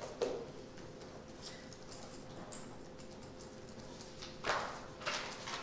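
Quiet meeting-room lull: a faint steady hum with scattered small taps and clicks from people at the table, and a couple of brief louder rustles or knocks near the end.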